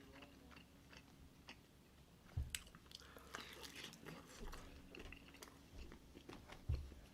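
Faint close-miked chewing and biting: scattered small wet clicks and crunches of food in the mouth, with a couple of low thumps about two and a half seconds in and near the end.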